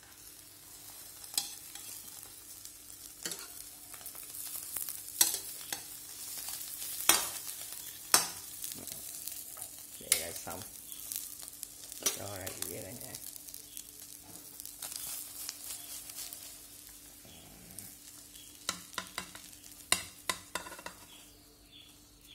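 Duck-egg omelette sizzling in a nonstick wok while a metal spatula scrapes and taps against the pan as it is folded, with a cluster of clinks near the end as it is slid onto the plate. A steady low hum runs underneath.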